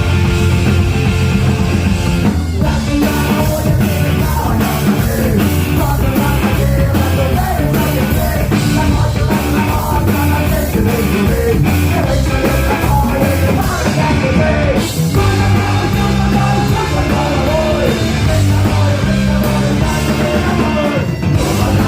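Punk rock band playing live, loud, with shouted singing over the band.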